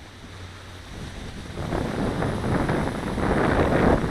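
Strong gusting wind buffeting the microphone, building from about a second in into a loud, rough rumble as a big gust arrives.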